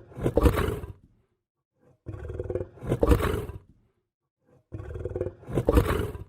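A lion growling in three separate bouts about two and a half seconds apart, each a low rumble that swells to a louder peak and then stops, with dead silence between.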